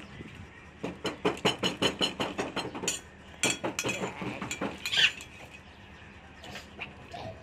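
Eating rice with a metal spoon from a ceramic plate: quick runs of clicks and scrapes from spoon and mouth, with a sharper clink about five seconds in.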